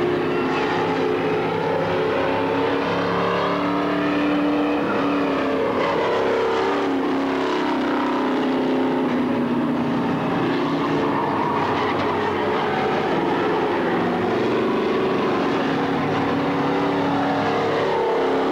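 Several race car engines running hard around the track, several pitches at once, each swelling and falling away as cars go by.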